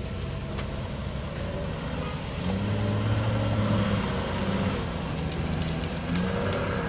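Toyota Land Cruiser 79's engine pulling at low revs as the truck creeps through a flooded, muddy rut, the engine note rising about two and a half seconds in and again near the end.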